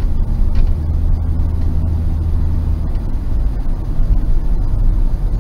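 Steady low rumble of a car's engine and tyres on the road, heard from inside the moving car by a dash cam.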